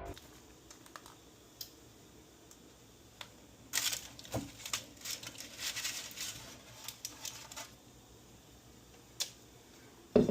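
Light clicks, taps and rustling of kitchen items being handled, busiest from about four to seven and a half seconds in.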